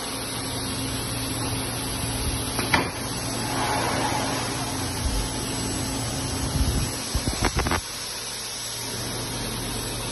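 Multi-head ultrasonic welding robot running: a steady machine hum with a hiss, a sharp click about three seconds in, and a cluster of clicks and knocks near the seven-second mark. The hum then cuts off suddenly, leaving quieter noise.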